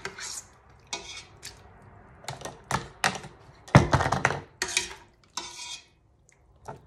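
A metal spoon scraping and clinking in a Cuisinart stainless steel pot as chunks of chicken in sauce are scooped out and tipped into a canning funnel on a glass jar. Irregular clatters, loudest about four seconds in.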